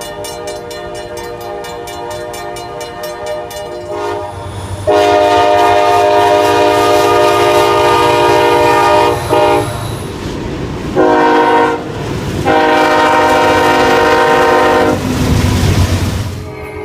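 Locomotive horn sounding a chord of several notes. A softer blast comes first, then a loud long blast, a short one and another long one: the long-long-short-long pattern of a grade-crossing signal.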